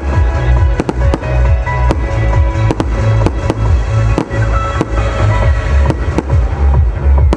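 Fireworks display: many sharp bangs of bursting aerial shells, several close together at times, over loud music with a heavy pulsing bass.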